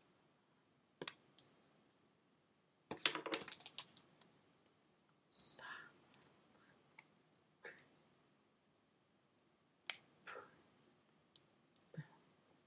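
Near silence broken by scattered soft clicks and taps from hands with rings and long fingernails moving and handling a plastic card, with a quick run of clicks about three seconds in. Short, soft breathy sounds come around six and ten seconds.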